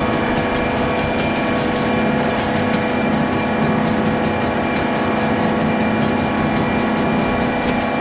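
Side-by-side utility vehicle's engine running steadily, with a fast, even ticking over it, as the vehicle stretches barbed wire.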